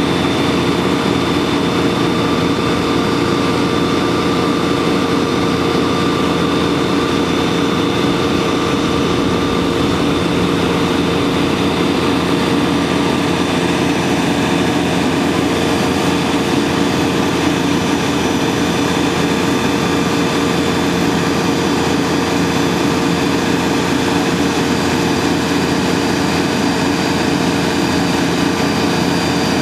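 Fire engine's diesel running steadily while it drives the fire pump, with the hiss of high-pressure water streams from the monitor and deck gun.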